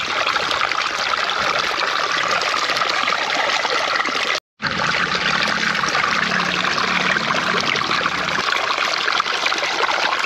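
Water running or trickling steadily, broken by a sudden brief cut to silence about halfway through.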